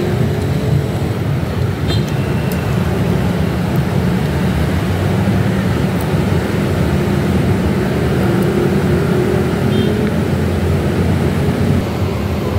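Steady low rumble of road traffic, with an engine hum running under it and a few faint clicks.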